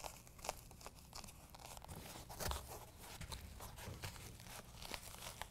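Hands pressing and rubbing a molded carpet bed liner panel down onto hook-and-loop fastener strips, giving faint, scattered scuffs and crackles.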